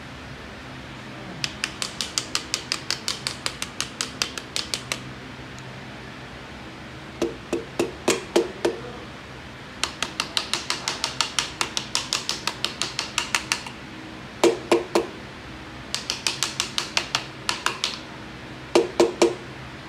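Ratchet wrench clicking in quick runs of about five clicks a second as it tightens a band-type piston ring compressor around a piston, with a few short groups of heavier, lower clicks in between.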